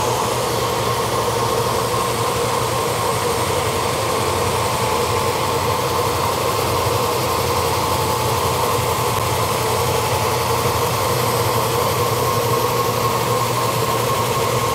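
Lagler Trio three-disc floor sander running steadily under load, its motor and built-in dust vacuum humming over the hiss of coarse 40-grit abrasive sanding a hickory floor panel.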